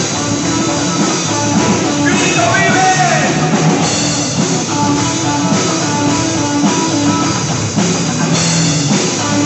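Live rock band playing a praise song: drum kit, electric bass and electric guitar through amplifiers, loud and steady.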